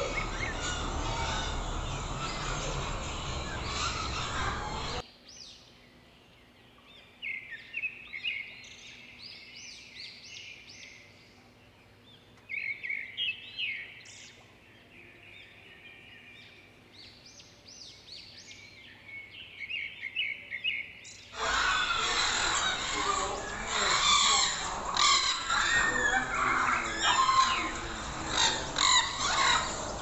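A dense chorus of many caged birds chirping and calling together, small finches and parrots among them. From about five seconds in until about twenty-one seconds only quieter, high chirps are heard, then the full chorus returns loud.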